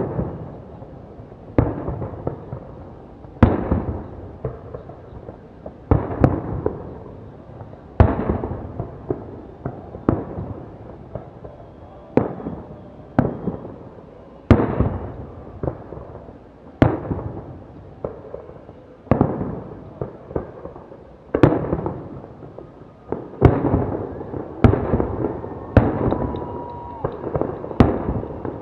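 Fireworks display: aerial shells bursting with loud bangs about every one to two seconds, each bang trailing off in a fading rumble of echo.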